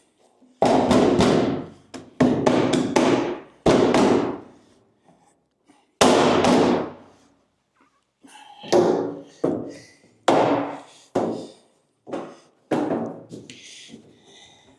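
About ten knocks on a Land Rover Series 3's aluminium rear tub panel as it is worked into place. The first four are heavy blows, each ringing on for over half a second. They are followed by six quicker, lighter ones.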